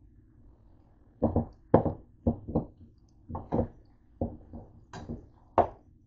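A black cooking spoon knocking and scraping against the sides of a metal pot while stirring a stew of pork and carrots: about a dozen short knocks, roughly two a second in an uneven rhythm, starting about a second in.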